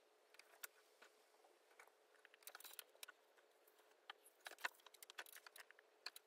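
Faint, scattered clicks of a laptop keyboard and mouse, bunched about two and a half and four and a half seconds in, over a faint steady hum.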